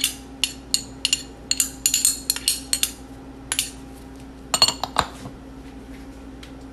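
Quick light clinks of a metal spoon knocking against a small container as chopped onion is tapped out into a glass mixing bowl, about three a second, followed by a few louder knocks near the middle.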